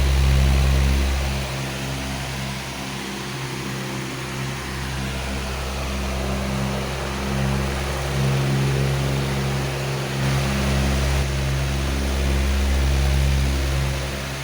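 Powerful electric fan running steadily: a rush of air over a low motor hum, with the deepest part of the drone swelling and easing a few times.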